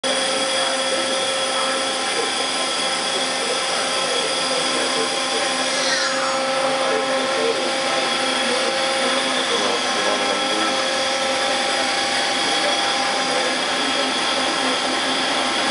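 Mazak Quick Turn 15N CNC lathe running: a steady machine hum with several whining tones. About six seconds in, one whine slides down in pitch, and a lower tone stops a few seconds later.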